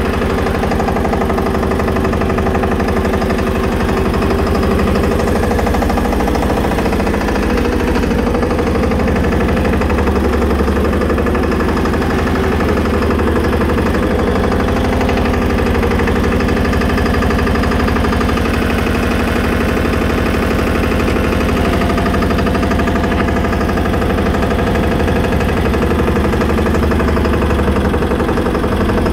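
Massey Ferguson 5118 mini tractor's single-cylinder 825 cc diesel engine running steadily, heard from the driver's seat, with an even, rapid beat of its firing strokes.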